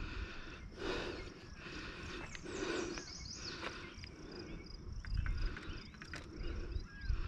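Outdoor riverbank ambience: wind rumbling on the microphone, with short high bird chirps and a falling whistled call near the end.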